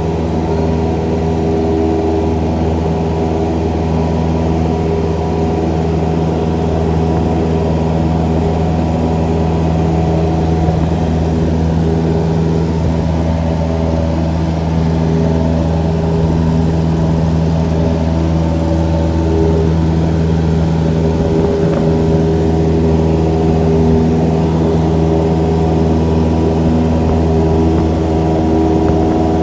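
Cessna F152's four-cylinder Lycoming engine and propeller droning steadily in flight, heard from inside the small cabin.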